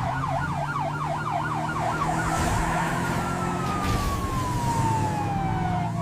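Emergency-vehicle siren: a fast warbling yelp, about three to four sweeps a second, that switches about two and a half seconds in to a slow wail falling in pitch, over a steady low drone.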